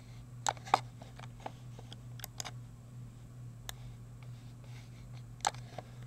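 Computer mouse button clicks: several sharp, irregularly spaced clicks, some in quick pairs, over a steady low hum.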